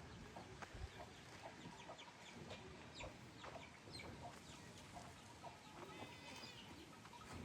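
Faint chickens clucking, short calls scattered throughout, with a brief cluster of calls about six seconds in.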